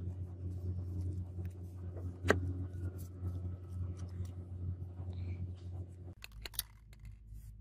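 A steady low hum with light clicks and taps of a steel cleaver being handled on a suede pad over a wooden bench: one sharp click about two seconds in, and a few knocks about six seconds in as the cleaver is set down, when the hum stops.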